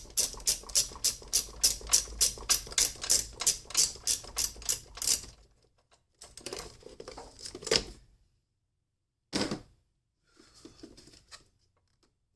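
Socket ratchet clicking fast and evenly, about four clicks a second for roughly five seconds, as a battery hold-down bracket bolt is worked loose. It then stops, and a few handling scrapes and one sharp knock follow.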